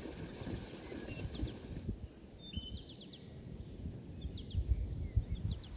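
Small birds chirping in short, high calls every second or so, over a low, uneven rumble of wind on the microphone.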